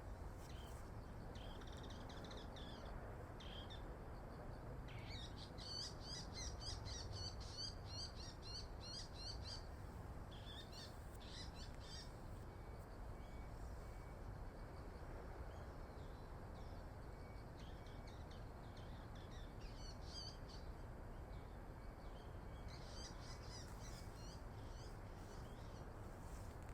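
Small birds calling in short, high chirps that come in clusters: a dense run of rapid chirps from about five to ten seconds in, with shorter groups scattered through the rest, over a steady low background rumble.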